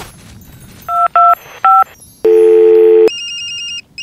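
Telephone sound effects: three short keypad beeps about a second in, then a loud held tone, then a trilling phone ring that pauses briefly and rings again near the end.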